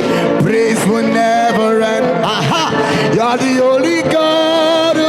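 Live gospel worship music: a singer ad-libbing wordless runs that slide up and down, then holding long notes over sustained accompaniment.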